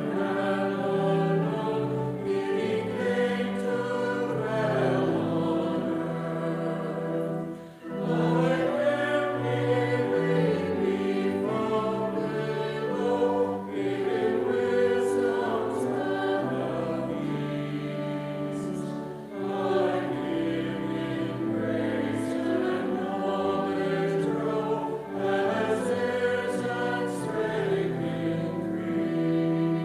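Choir singing slow sacred music in long held chords, in phrases of about five or six seconds with a brief pause between each.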